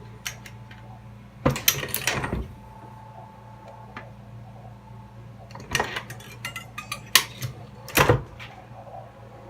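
Metal clicks and clinks of a Dillon XL650 progressive reloading press and 9 mm cartridges being handled. They come in two quick clusters, one about a second and a half in and one from about six seconds in, over a steady low hum.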